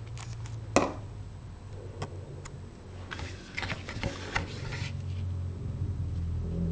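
Paper and card being handled and pressed down while gluing a card together: a sharp tap about a second in, a few light ticks, then a short spell of paper rustling and scraping in the middle, over a low steady hum.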